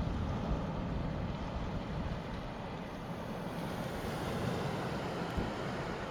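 Gentle sea waves washing in at the shoreline, a steady rushing wash with low rumbling wind buffeting the microphone.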